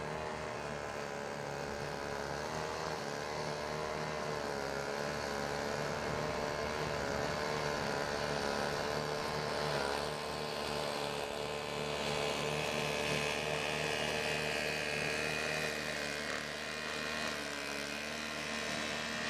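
Single-stage snowblower's small gasoline engine running steadily under load as it throws snow, its pitch wavering slightly. A hiss of thrown snow rises in the second half.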